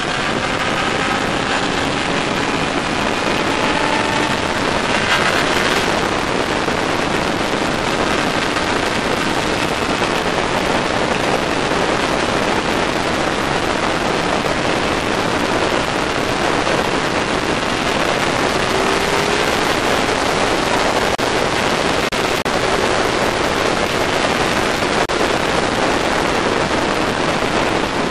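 Steady rush of wind noise on a motorcycle-mounted camera at road speed. Faint motorcycle engine notes show through, rising in pitch a few times.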